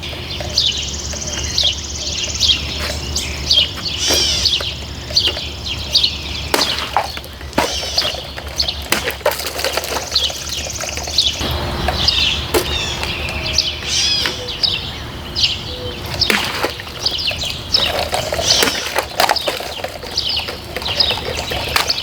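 Small songbirds chirping and twittering without a break, with a few scattered sharp clicks and knocks.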